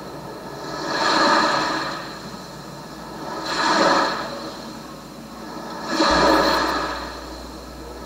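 Sea waves washing in and drawing back, a surge of surf about every two and a half seconds, three in all. A low rumble joins about six seconds in.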